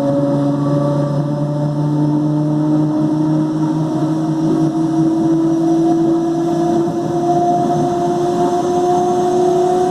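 Mafersa-built CPTM electric train car 1739 growling very loudly under power, its motor tone rising slowly and steadily in pitch as the train gathers speed.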